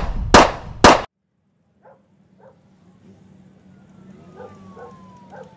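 Three handgun shots about half a second apart, cut off suddenly. After a pause come faint short yaps.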